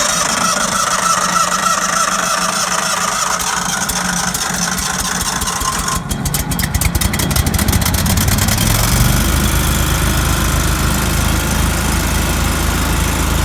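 Kohler 25-horsepower gas engine of a Cimline PCR-25 pavement router running just after being started. Its sound changes about six seconds in, and a deeper rumble builds from about eight seconds.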